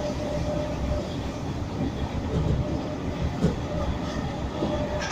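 Class 313 electric train running, heard from inside the carriage: a steady rumble of wheels on the rails with a faint steady whine.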